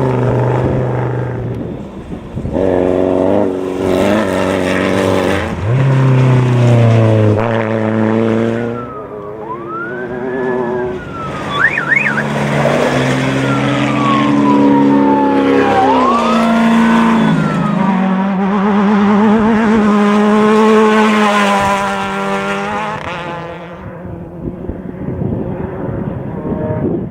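Off-road race vehicles' engines revving hard, their pitch climbing and dropping through gear changes and passes, across several shots. A thin high whine rises and falls twice over the engines.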